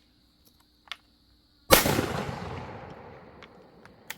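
A single shotgun shot from a Browning A5 inertia-driven semi-automatic, fired about a second and a half in, its echo fading over about two seconds, followed by a light click near the end. With this load the action does not cycle properly.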